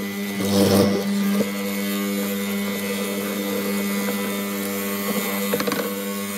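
Benchtop hollow-chisel mortiser running with a steady motor hum. About half a second in, the chisel and auger bite into the wood with a brief louder grinding cut. A few short knocks come near the end.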